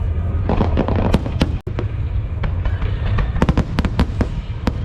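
Fireworks display going off: a rapid, irregular string of sharp bangs and crackles over a steady low rumble, the bangs coming thickest about a second in and again in the last second and a half.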